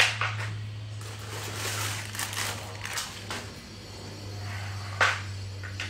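Knocks and rustling from handling the parts of a new office chair during assembly: a sharp knock at the start, scraping and rustling through the middle, and two more knocks near the end, over a steady low hum.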